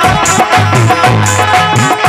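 Instrumental break in a folk bhajan: a harmonium plays held, steady notes over a hand-drum rhythm whose low strokes bend upward in pitch, with a high tap about twice a second.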